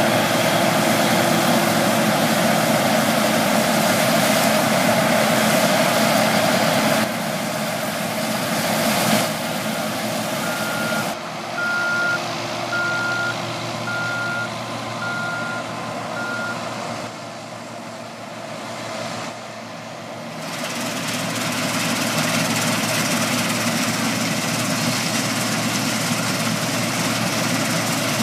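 New Holland 3550 AL combine harvester running its six-cylinder Iveco/Fiat diesel with the threshing gear working, fading as it moves away and growing louder again about three-quarters of the way through. Midway, six evenly spaced beeps of its reversing alarm, about one a second.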